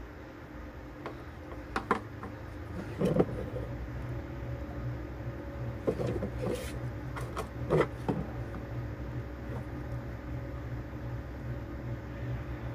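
A few light knocks and clicks of a circuit board and soldering tools being handled during soldering, scattered about two, three, six and eight seconds in, over a steady low hum.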